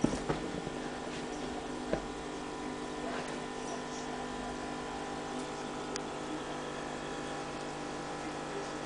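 Steady electric hum of aquarium pump equipment running, with a few sharp clicks in the first two seconds.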